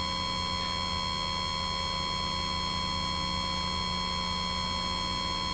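Steady electrical hum and buzz, several constant tones at once over faint hiss, with no speech.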